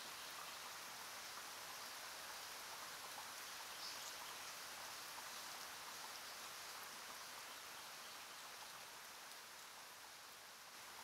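Faint steady hiss of background noise with a couple of very faint light ticks.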